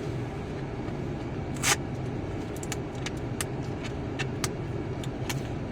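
Steady low rumble of a car running, with scattered sharp clicks and a brief crinkle about two seconds in from plastic toy packaging being opened.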